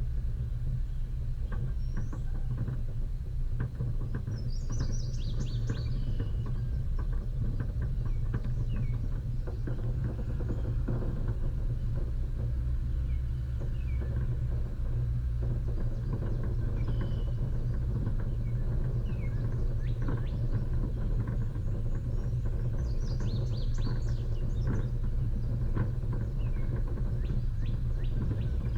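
Off-road vehicle driving slowly on a dirt track: a steady low engine and road rumble with scattered knocks and rattles. Birds chirp now and then over it.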